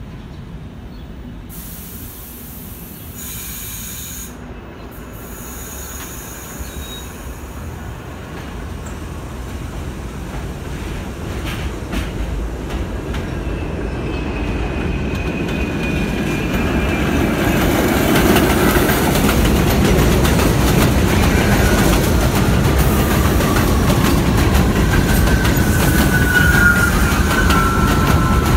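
An R68 New York City subway train pulling into an elevated station, its rumble growing steadily louder. From about halfway in, the wheels and brakes squeal in thin tones that slide down in pitch as the train slows.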